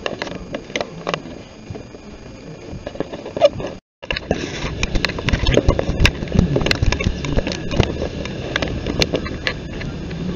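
Handling noise of a handheld phone swung about while walking: rustling, irregular knocks and footsteps. The sound cuts out completely for a moment about four seconds in, then comes back louder and busier.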